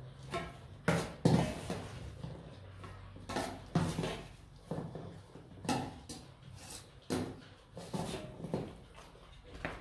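Metal spoon scraping and knocking against stainless steel bowls as rice and minced chicken are scooped and portioned out, in a quick irregular run of scrapes and clinks.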